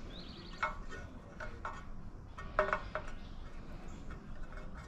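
A few irregular, sharp metallic clinks of a wrench against nuts, bolts and brackets while the radiator mounting hardware is tightened; the loudest clink comes about two and a half seconds in.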